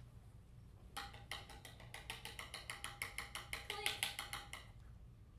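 Rapid, even tapping on a percussion instrument, about five strikes a second for roughly three and a half seconds, over a faint held tone.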